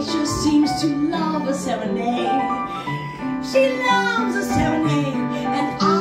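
A woman singing a cabaret-style song into a microphone, her voice sliding between held notes, with live piano accompaniment.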